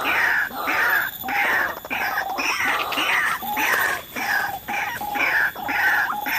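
White-breasted waterhen calling, a harsh two-part croak repeated monotonously about twice a second: the ruak-ruak call used as a lure when trapping this bird.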